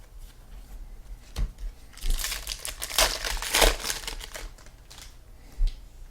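Crinkling and tearing of a trading-card pack wrapper being opened and handled, loudest through the middle two or three seconds. A light knock about a second and a half in and another near the end.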